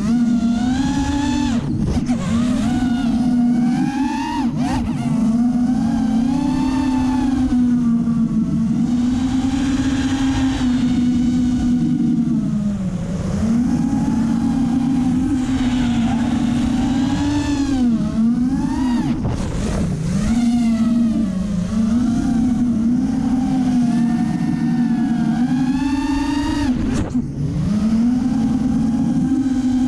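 The four Racerstar BR2205 2300kv brushless motors of a 5-inch FPV race quad whining, the pitch climbing and dropping again and again as the throttle is punched and eased, with a few deep dips. Wind rushes over the onboard GoPro's microphone underneath.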